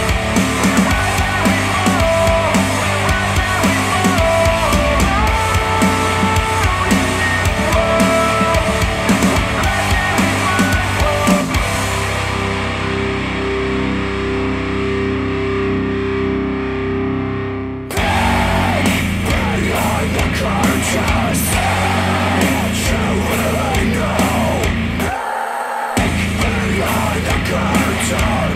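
Rock song with electric guitars played back through Elac DBR62 bookshelf speakers driven by hi-fi integrated amplifiers. About twelve seconds in, the treble fades away over a held note; about eighteen seconds in, the full band comes back in sharply. There is a short break near twenty-five seconds.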